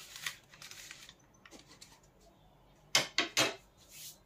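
Paper food wrapping rustling and crinkling under hands handling a cut roti, with three short, loud crackles about three seconds in.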